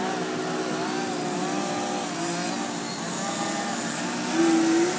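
Several radio-controlled model airplane engines running at once, their pitches rising and falling as the planes hold a hover under changing throttle. One gets louder for about half a second near the end.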